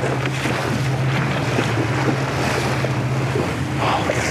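Fishing boat's engine running steadily at trolling speed, a low even hum, with water rushing past and wind buffeting the microphone.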